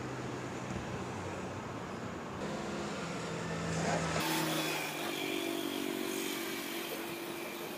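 Steady engine hum of motor vehicles in the background, its pitch changing abruptly about four seconds in.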